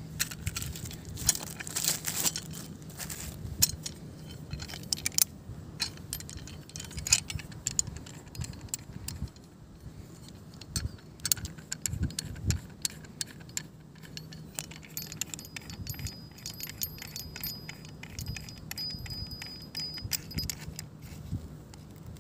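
Small metal and hard-plastic clicks and clinks as a survival multi-tool is assembled by hand: the folding steel shovel head is fitted onto the handle and the handle sections are screwed together. The clicks come as an irregular, quick run throughout.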